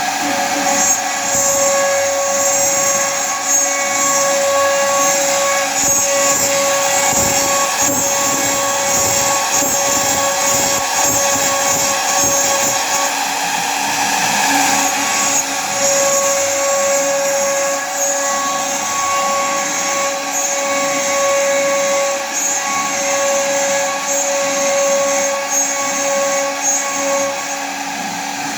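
Large CNC router with servo drives running: a steady machine whine over a broad hiss, with the whine breaking off briefly about halfway through.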